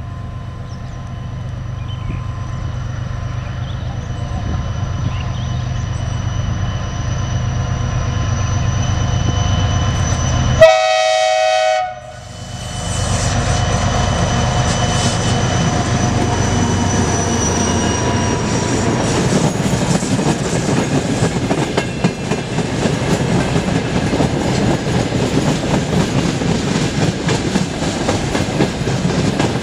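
Freight train hauled by two diesel locomotives: the engines drone steadily as they approach, one short horn blast sounds about eleven seconds in, then the locomotives pass and the long train of open freight wagons rumbles and clatters over the rail joints.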